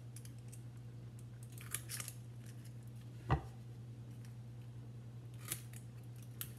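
Long wick clippers cutting the thin wooden X wicks of a candle: a few crisp snips about two seconds in, a sharper, louder click a little after three seconds, and another snip near the end, over a steady low hum.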